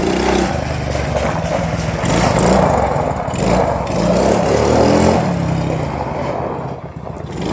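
ATV (four-wheeler) engine being ridden, its pitch rising and falling several times as the throttle is worked, with a steady rushing noise underneath.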